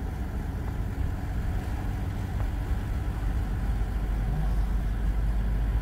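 A car driving along, heard from inside the cabin: a steady low rumble of road and engine noise.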